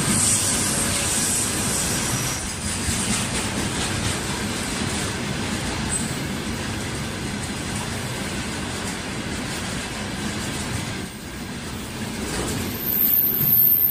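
Freight train of rail tank wagons rolling past at close range: a steady rumble and rattle of wheels on the rails. It dips briefly about eleven seconds in, then grows louder near the end as a high thin whine joins it.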